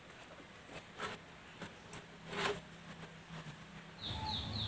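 Faint, sparse crackles and ticks from banana-leaf packets of fish roasting on a wire grill over glowing charcoal. About four seconds in the background changes and a repeated high chirping begins, about three chirps a second.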